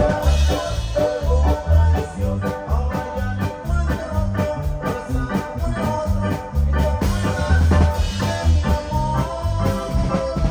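Live band playing an instrumental passage of Latin dance music: a Korg Krome synthesizer melody over drums and bass with a steady beat.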